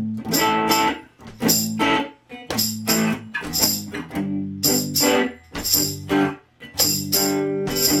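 Semi-hollow electric guitar strumming chords in a steady rhythm, in short groups with brief breaks between them.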